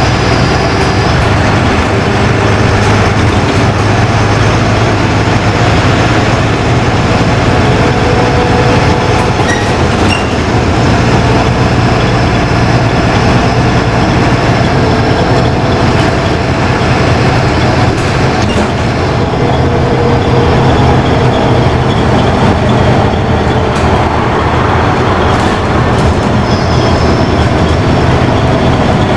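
Steady engine drone and rolling noise heard from inside a LiAZ-5292.20 city bus under way, with a few light clicks and knocks from the body.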